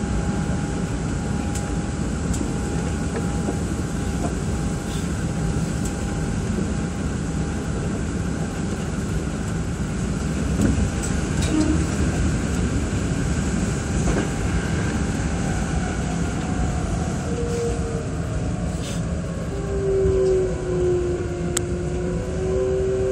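Hankyu 8300 series electric train running at speed, heard from inside the driver's cab: a steady rumble of wheels on wet rails. In the last few seconds a wavering hum joins in as the driver starts to brake.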